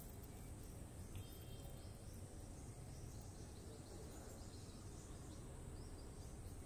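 Quiet ambient background: a low rumble under a steady high-pitched hiss, with a faint click about a second in.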